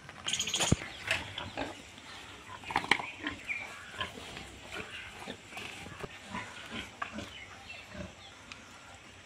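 Pigs grunting, with a short higher-pitched squeal and a sharp knock in the first second, followed by scattered grunts and clicks.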